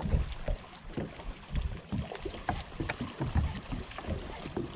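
Small waves slapping and knocking irregularly against the hull of a bass boat, a few times a second, with a few light clicks over a steady background hiss.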